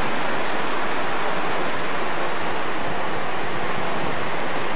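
Ocean surf breaking on a beach, heard as a steady, unbroken wash of noise.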